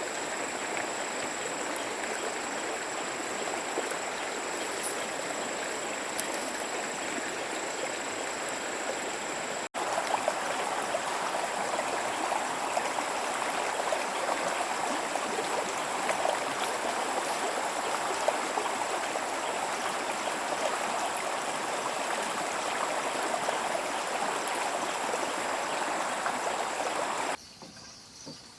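Stream water rushing and splashing steadily. There is a brief break about a third of the way in, and the sound drops away just before the end.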